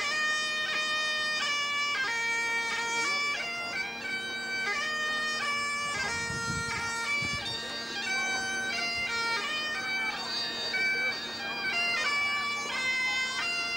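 Great Highland bagpipe playing a tune: the chanter steps from note to note over the steady hum of the drones.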